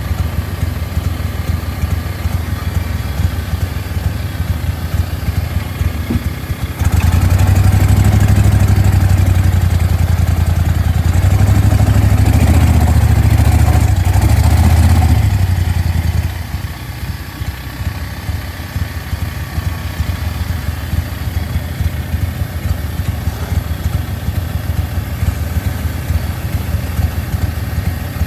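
An engine running steadily. About seven seconds in it suddenly gets louder and stays up for about nine seconds, then drops back to its earlier steady running.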